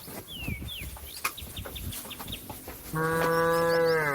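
A cow mooing: one long, loud moo starting about three seconds in, held steady and then dropping in pitch as it ends. It is a cow calling to a companion out grazing. Faint bird chirps come before it.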